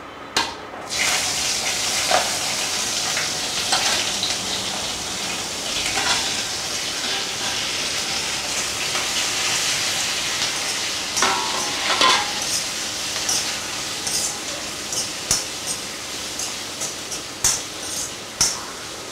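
Chopped green capsicum and onion dropped into hot oil in a wok, sizzling steadily from about a second in, while a steel spoon stirs them and scrapes and clinks against the pan. The spoon clinks come quicker near the end.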